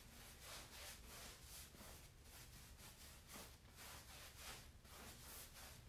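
Near silence, with faint, irregular scratchy strokes of a paintbrush working paint into a fabric cushion.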